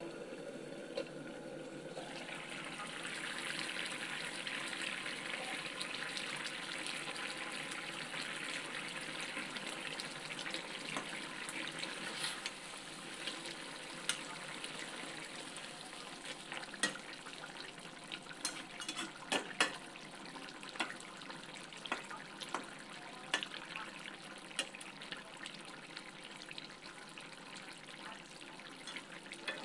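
Potato and eggplant soup bubbling at a boil in a metal pan, with a steady watery hiss. A spatula stirs it, and from about halfway it knocks and scrapes against the pan with a string of sharp clicks.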